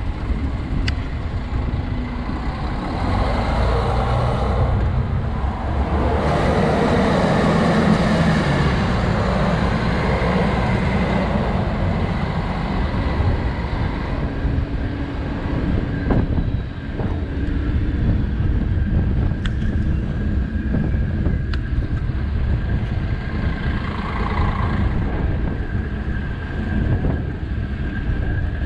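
City street traffic: a steady wash of cars and other vehicles passing, with tyre and engine noise rising as a vehicle passes close between about six and nine seconds in.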